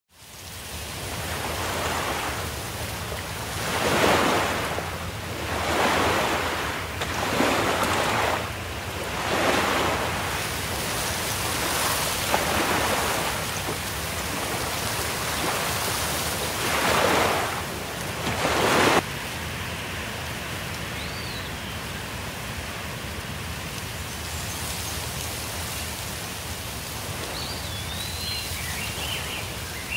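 Outdoor ambience: a rushing noise that swells and fades in repeated surges, then cuts off suddenly about two-thirds through. It gives way to a steadier, quieter hiss with a few short high chirps near the end.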